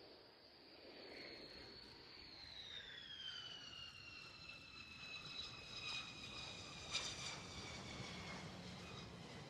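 Jet engine turbine whine, faint, falling steadily in pitch from about two seconds in, as when the engine spools down. A sharp click comes about seven seconds in.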